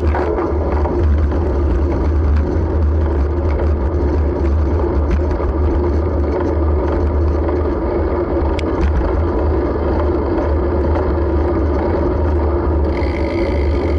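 Steady road rumble and bicycle frame resonance picked up through a Sony HDR-AS15 action camera mounted on the bike, with small ticks and rattles. A high, even buzz starts about a second before the end, which fits the rear hub's freewheel ratchet.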